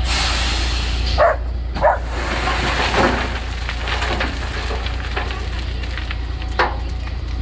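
Dump truck tipping its load of sand and stones: a steady rushing hiss of sliding sand over the truck engine's low rumble, with four sharp knocks of stones striking.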